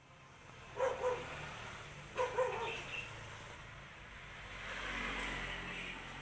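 A dog barking: two quick double barks about a second and a half apart, followed by a broad hiss that swells and fades.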